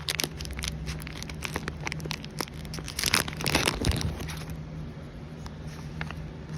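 Thin plastic crinkling and crackling as it is handled, a quick irregular run of small clicks that thins out after about four and a half seconds.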